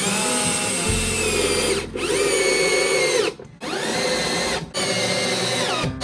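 Cordless drill driving long screws into a wooden laminated beam. The motor whines up to speed and runs, drops briefly between screws and starts again, in about four runs.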